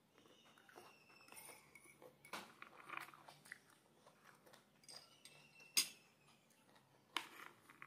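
Faint chewing and a metal fork clicking and scraping against plates, with two sharp clinks in the second half, the first the loudest.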